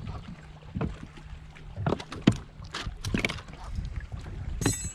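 Knocks and clatter of gear being handled in a fishing boat, several sharp taps over a low steady hum, with a short buzz just before the end.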